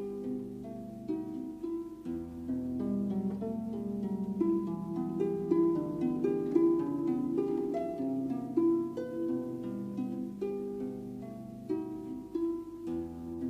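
Background instrumental music: a gentle run of plucked, harp-like notes over held low notes.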